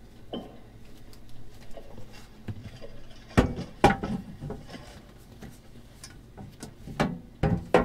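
Board panels of a camper van's dinette being lifted, shifted and set down as the seating is converted into a bed, giving a few sharp knocks and thuds: a pair about three and a half seconds in and more near the end.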